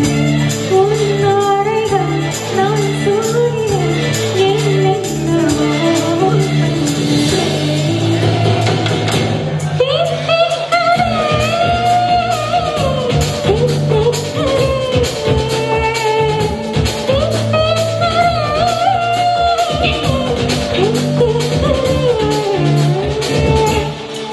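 Live band performing a Tamil film song: a woman sings the lead vocal over keyboards, bass guitar, electric guitar and percussion.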